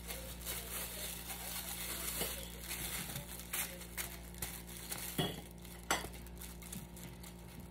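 Silicone spatula scraping mashed banana out of a fluted ceramic dish held over a glass bowl, with irregular scrapes and knocks of dishware. The sharpest knock comes about six seconds in.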